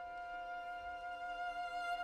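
Chamber orchestra strings holding a sustained chord of several high notes, led by violins. The chord swells slowly louder.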